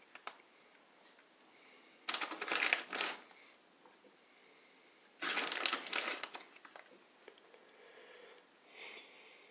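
Plastic bag of shredded mozzarella crinkling as it is handled and cheese is pinched out of it. There are two bursts about a second long, around two and five seconds in, and a fainter one near the end.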